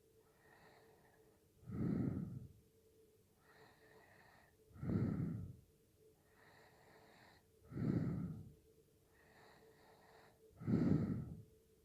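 A person snoring in sleep: four loud snores about three seconds apart, each lasting about a second, with softer breathing out between them.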